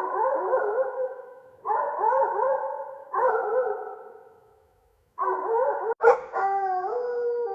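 Dog crying and howling: four wavering, whining cries about a second and a half apart, each starting sharply and fading away, then a short sharp click about six seconds in and a long held howl that steps up in pitch near the end.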